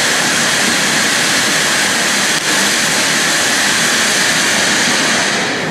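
Ground firework fountain (a "Vulkan") spraying sparks with a loud, steady hissing rush, starting to fade near the end.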